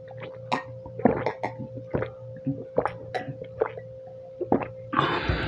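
Water being gulped and swallowed from a glass, close to a clip-on microphone: a run of short, irregular wet gulps and clicks. A brief, louder rustle comes near the end.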